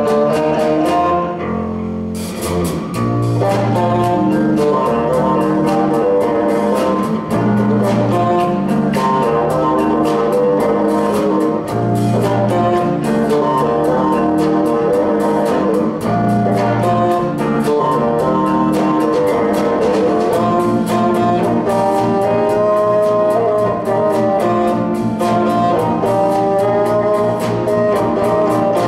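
A rock band playing with a bassoon over electric bass, electric guitar and a drum kit. The drums come in about two seconds in.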